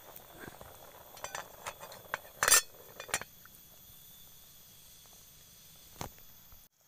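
Metal pot lid clinking against the rim of a pot of boiling water, several clinks over the first three seconds with the loudest about two and a half seconds in.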